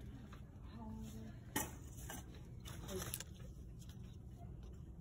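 Shop background noise: a steady low hum with faint distant voices, and one sharp clack of something hard knocked or handled about a second and a half in.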